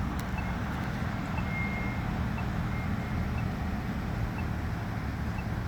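Steady road-traffic rumble. An accessible pedestrian signal push button's locator tone ticks over it about once a second.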